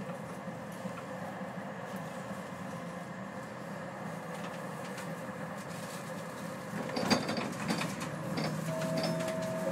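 Type E1 tram running, heard from inside the driver's cab: a steady low running noise of motors and wheels on the rails. About seven seconds in it grows louder with a sharp click and a run of light ticks, and a steady tone comes in near the end.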